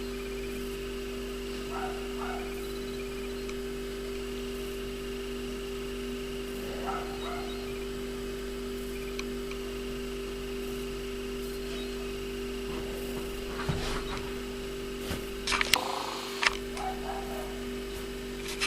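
Steady electrical hum made of two fixed low tones, with a few sharp clicks and knocks in the last few seconds.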